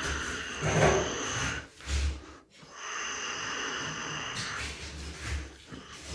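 A small electric motor whining in two bursts of about a second and a half each, with low thumps and rumble around them.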